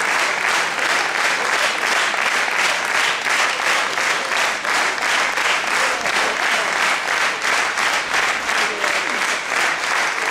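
Theatre audience applauding, clapping together in a steady rhythm of about three claps a second.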